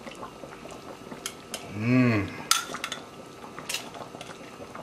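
Metal kitchen tongs clicking and tapping against a ceramic bowl as pineapple chunks are placed into a pan of coconut sauce: a few sharp, separate clicks. About two seconds in a man hums briefly, the pitch rising then falling.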